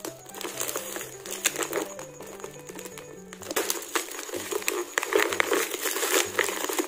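Plastic courier pouch crinkling and rustling as hands pull it open, louder from about halfway through, over background music with a low bass line stepping between held notes.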